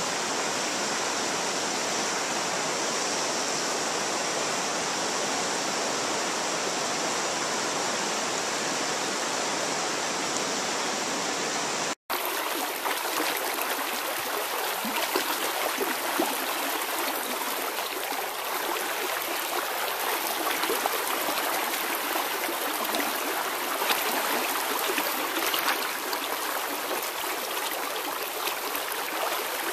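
River water rushing over a salmon pool, a steady noise of flowing current. About twelve seconds in it drops out for a split second, then carries on with scattered small splashes.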